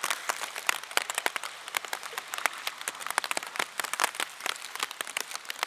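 Rain falling, with many close drops striking near the microphone as dense, irregular sharp ticks over a steady hiss.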